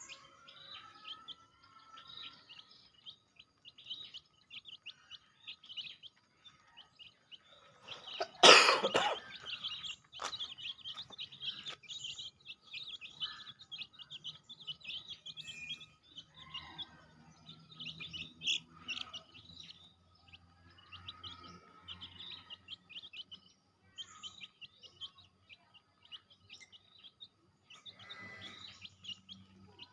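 Many chicks peeping, a dense run of short high chirps. A loud, brief noise about eight and a half seconds in stands out above the peeping.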